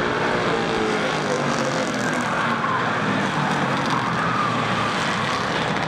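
Several street stock race car engines running hard together, their pitch rising and falling as the cars circle the track.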